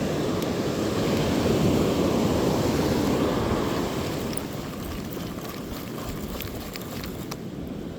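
Sea surf washing against the shore, with wind buffeting the microphone. The wash swells about one to three seconds in, then eases off, and a few faint ticks come near the end.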